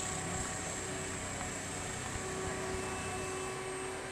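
Steady droning of a distant engine, with a few faint held tones over an even hiss.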